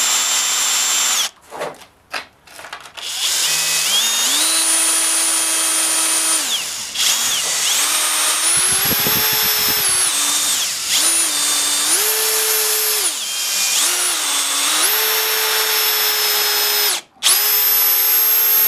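Handheld power drill boring into the end of a wooden file-handle blank. The motor whine rises and falls as the trigger is worked, stopping and restarting several times, with a rough chattering patch about nine seconds in.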